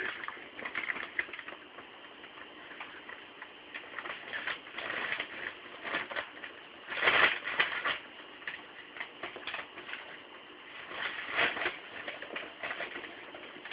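A dog whining and fussing, high cooing whimpers mixed with short clicking noises, with louder outbursts about seven and about eleven seconds in.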